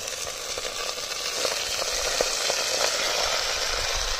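Raw chicken pieces sizzling in hot oil with whole spices in a clay handi, the sizzle growing a little louder after about a second. A few sharp clicks of a metal spatula against the pot.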